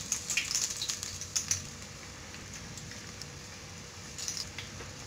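Hot oil sizzling and crackling in a steel kadai as small lumps of gram-flour bonda batter are dropped in to deep-fry. The crackles come thickest in the first second and a half and again about four seconds in.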